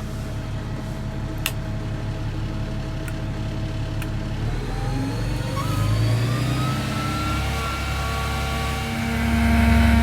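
Peterbilt 330 truck's diesel engine running, its pitch rising smoothly about halfway through and holding at a higher speed, then getting louder near the end. A few faint clicks early on.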